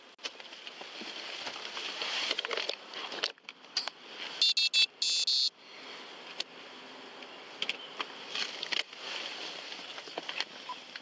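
Two short electronic alert tones, back to back, about four and a half seconds in, amid rustling and handling noise from movement in a patrol car's seat.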